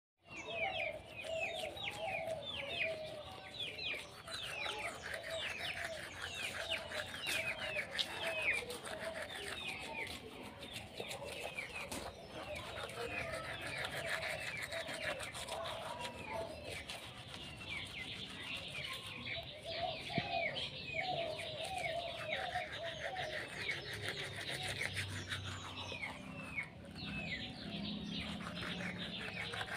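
Birds calling: many short, quick falling chirps repeating throughout, over a lower wavering call that comes and goes.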